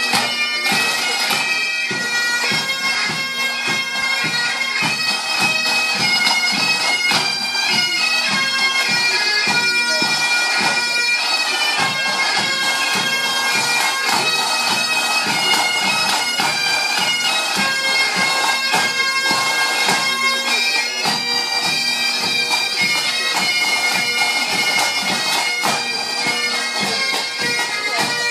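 Pipe band playing on parade: bagpipes sound their steady drones under the chanter melody, with drums beating a regular rhythm underneath.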